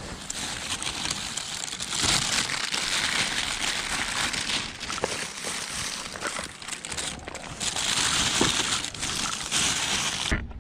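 Thin plastic bags crinkling and rustling continuously as gloved hands rummage through them and pack items in.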